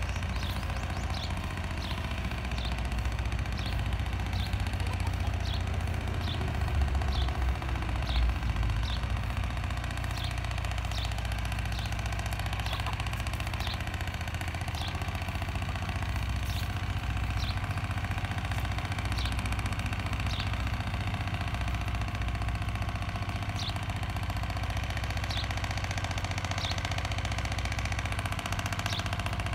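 A steady low mechanical drone, like a distant engine or motor running, briefly louder around seven to eight seconds in. Over it, a small bird repeats short high chirps, roughly one every two-thirds of a second.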